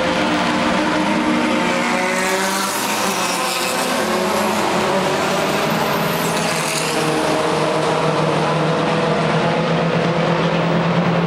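Racing car engines running on the circuit: a loud, steady engine drone whose pitch shifts up and down.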